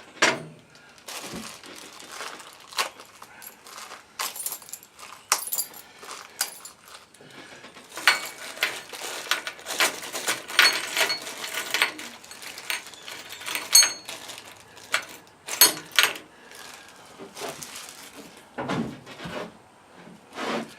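Metal parts and hardware of a yard cart clinking, rattling and knocking as it is assembled by hand, with a busier stretch of rattling in the middle and a few short metallic rings.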